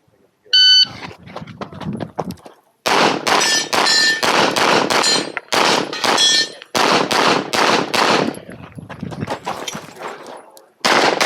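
An electronic shot timer gives one short start beep, then a handgun fires in rapid strings of shots with brief pauses between them. A short ringing tone follows a few of the shots.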